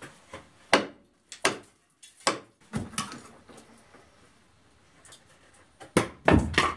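Hand hammer striking at old wooden ceiling beams overhead: single sharp blows every half second to a second at first, a pause, then a quick run of harder blows near the end.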